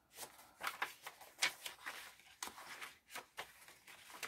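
Pages of a handmade junk journal of mixed papers and cardstock being turned by hand: a quick, irregular run of paper rustles and flaps, several a second.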